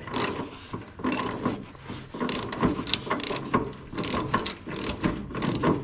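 Socket ratchet wrench on an extension clicking in quick, irregular runs as it is swung back and forth to undo a loose body bolt.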